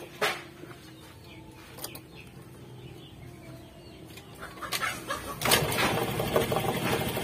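Honda Vario 110 scooter's single-cylinder four-stroke engine starting about five seconds in, after a few clicks and knocks, then idling with a steady pulse. It starts and runs with no battery connected.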